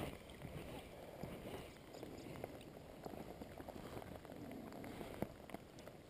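Light rain falling on a river: a faint, even patter with many small scattered ticks of drops.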